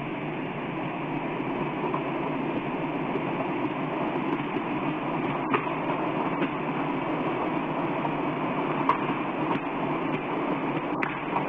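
Steady rushing roar that slowly grows a little louder, with a few faint sharp clicks.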